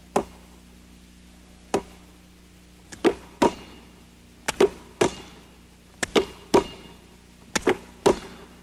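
Sharp slaps of bare hands clapping and snatching a basketball in the knee-clap drill: a hand clap in front, then the smack of the hands catching the ball behind the knees. Single smacks at first, then quick groups of two or three about every second and a half.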